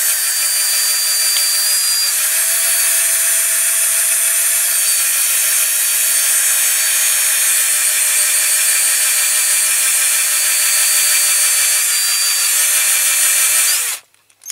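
Electric drill running steadily with a motor whine as its bit drills out a rivet in a diecast toy tractor; it stops suddenly near the end.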